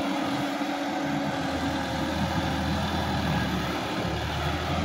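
Sonalika DI-50 RX tractor's diesel engine running steadily under load, with the rear implement working through flooded paddy mud.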